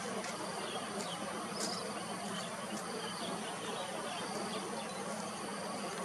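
Insects buzzing in a steady, high-pitched chorus, with a few short faint chirps over it.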